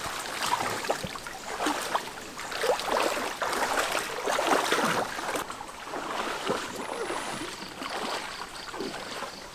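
Water sloshing and splashing around legs wading through a shallow stream, busiest in the first half and thinning out after about five seconds.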